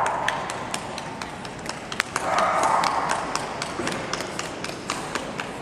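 Quick footsteps tapping on a hard floor, about three or four sharp clicks a second, with a dog yelping briefly about two seconds in.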